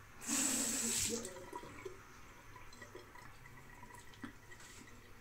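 A water tap running into a sink for about a second, then shut off.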